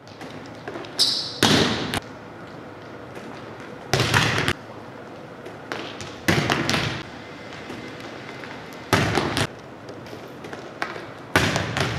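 Volleyballs being struck and hitting the hard gym floor: five loud slaps, roughly every two and a half seconds, each ringing briefly in the hall.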